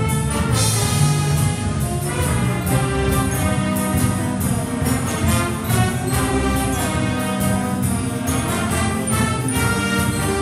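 A school jazz big band playing live, with the horn section of saxophones, trumpets and trombones over piano and a drum kit keeping a steady beat.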